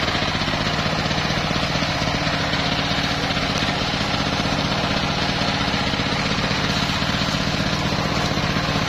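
Single-cylinder diesel engine of a portable sawmill idling: a steady, even chugging with no cutting load.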